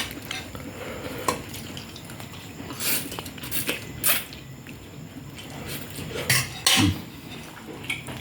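Eating utensils clinking and scraping against dishes, several irregular sharp clinks over a low background.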